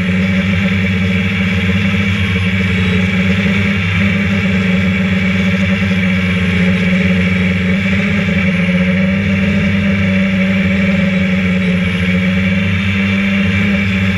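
Electric motors and propellers of a hovering multirotor RC drone, heard from the camera mounted on its frame: a loud, steady hum with a strong low tone that holds its pitch.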